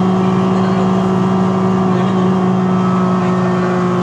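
Mercedes-Benz O405G articulated bus's diesel engine running with a steady, loud drone and whine that holds one pitch; the uploader calls this engine bad and its sound weird.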